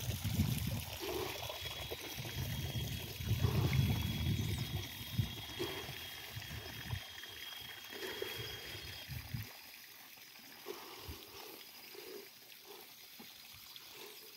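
Wind noise on the microphone, gusting unevenly, that dies down about nine seconds in. A faint, thin, high steady tone runs through the middle stretch.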